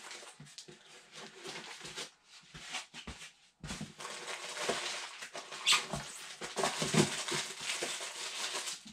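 Rustling and crinkling of plastic bags and packing material, with small knocks, as accessories are lifted out of a box. It is sparse at first and gets busier from about four seconds in.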